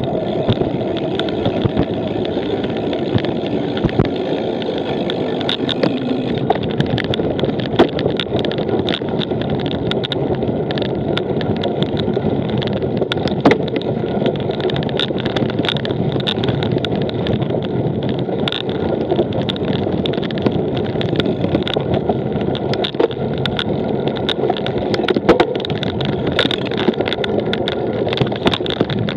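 Cyclocross bike ridden over rough ground: a steady rumble of tyres and drivetrain with frequent sharp rattles and clicks from the bike.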